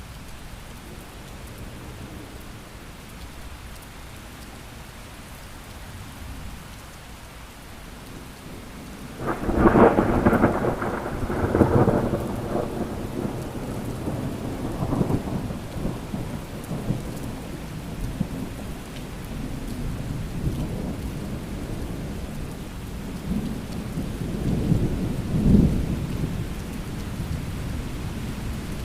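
Steady rain with thunder. About nine seconds in, a sudden loud thunderclap breaks and rumbles on for several seconds, and a second, softer roll of thunder swells near the end.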